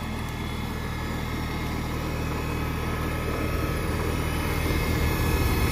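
1960 International Harvester Cub Lo Boy's small four-cylinder flathead engine idling steadily, growing a little louder toward the end.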